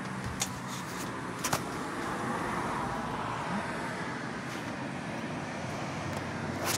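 Steady background rumble and low hum of road traffic, with a few light clicks.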